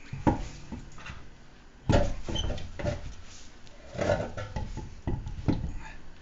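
A car wheel and tire being lifted and fitted onto the rear wheel hub, giving a series of irregular knocks and clunks with scraping between them. The hardest knocks come just after the start and just before two seconds in.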